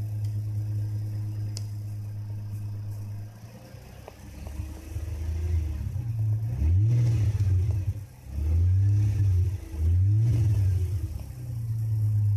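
Nissan Fuga 350GT's 3.5-litre V6 idling through a one-off quad-outlet exhaust, then given three short blips of the throttle in the second half. Each time the revs rise and fall back to idle.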